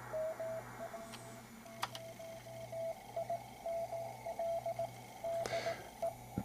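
Morse code (CW) signal received on an ICOM IC-730 HF transceiver: a single steady tone of about 650–700 Hz keyed on and off in dots and dashes, over low band hiss.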